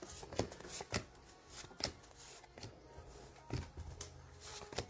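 Baseball trading cards being handled and flipped through by hand: an irregular series of soft flicks, slides and taps as cards are moved from the front of the stack to the back.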